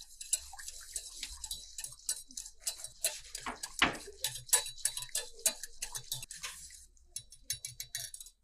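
Spoon stirring a sauce as it boils in a pan: irregular clicks and taps against the pan, several a second, over a high hiss from the boiling sauce that stops near the end.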